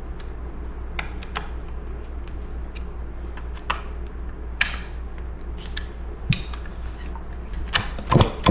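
Scattered clicks and knocks of small chainsaw parts and tools being handled on a workbench, over a steady low hum. A louder cluster of knocks comes near the end.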